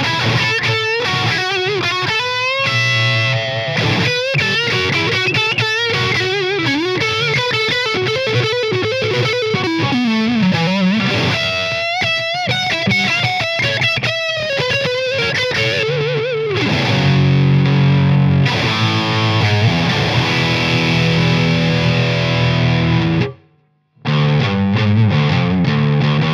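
1996 Gibson Les Paul Studio electric guitar played through a Mesa Mini Rectifier 25 head into a 1x12 cabinet with a WGS Retro 30 speaker, with a high-gain distorted tone. It starts as a lead line with bends and vibrato; about 16 seconds in it switches to low, rhythmic riffing, which stops dead for a moment near the end and then starts again.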